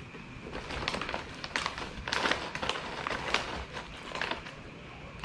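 Plastic foil snack bag crinkling as it is handled, a run of irregular sharp crackles that fades out after about four seconds.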